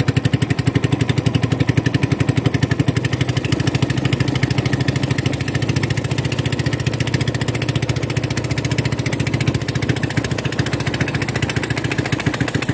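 Small wooden river boat's engine running steadily under way, a fast, even putter.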